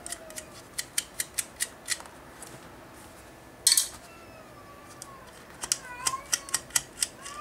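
Quick runs of small metallic clicks as the nuts are worked off the antenna connectors of a Ubiquiti Prism 5AC Gen2 radio. About halfway through there is one louder clatter of a part dropping into a plastic parts box. A cat meows faintly underneath.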